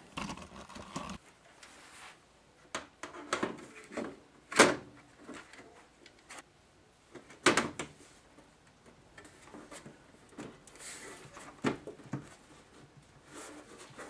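Scattered clicks and knocks as a computer case's acrylic-windowed panel is handled and fitted onto the case, the sharpest knocks about four and a half and seven and a half seconds in, with a brief rustle now and then.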